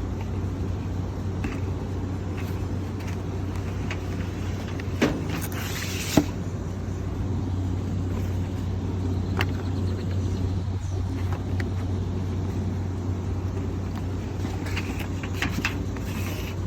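Steady low machinery hum, with scattered knocks and clicks as filters are handled and slid into the unit's filter track. The sharpest knock comes about six seconds in, and there is a cluster of clicks near the end.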